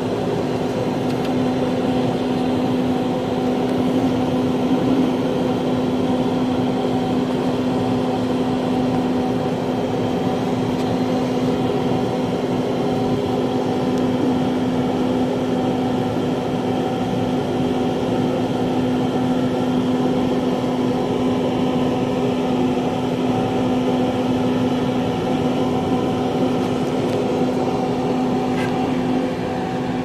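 Cooling fan of a Coors Light beer dispenser refrigerator running behind its vented grille: a steady mechanical hum with one strong low tone over an even whir.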